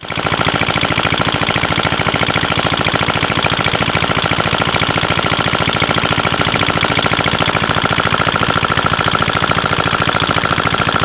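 An engine running steadily with rapid, evenly spaced firing pulses and a constant high tone over it.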